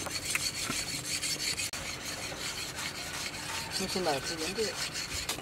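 Repeated rasping strokes of a sharpening stone drawn along a khukuri's steel blade.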